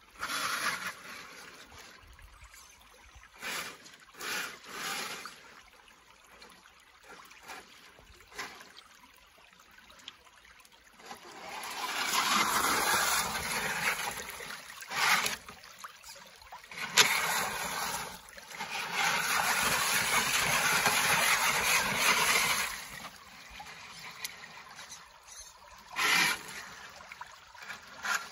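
Two-wheel-drive RC car's motor and gears whirring in short bursts, then its tyres churning through shallow creek water. The splashing comes in two loud stretches of several seconds each in the second half, with a sharp knock between them.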